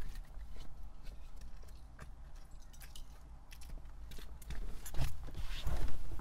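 Faint handling noises, a few small clicks and rustles, grow louder in the last couple of seconds, over a low steady rumble.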